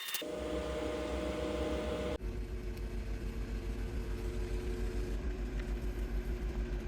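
Keycap printer running a test print: a steady mechanical hum with a low, fast, even pulsing that changes abruptly about two seconds in.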